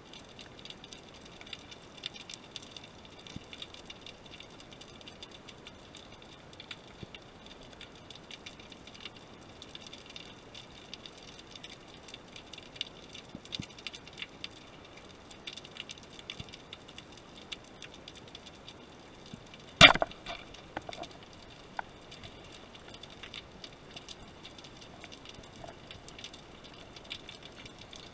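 A speargun fired underwater: one sharp, loud crack about twenty seconds in as the shot spears a fish, followed by a few smaller clicks. A faint, steady underwater crackle and ticking runs underneath.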